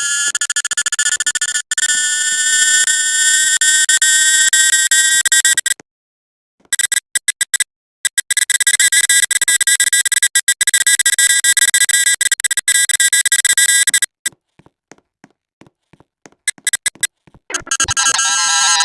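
Loud, steady electronic buzzing tones at many pitches at once, which cut off abruptly into dead silence several times, with a long gap past the middle.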